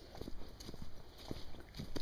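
Footsteps of a person walking briskly on a dirt path with leaf litter, about two steps a second.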